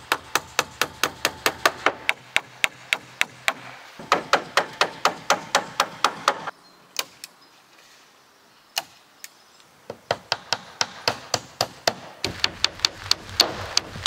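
Hammer driving nails into wooden roof boards: quick, even strikes at about five a second, in several runs broken by short pauses and a few single blows.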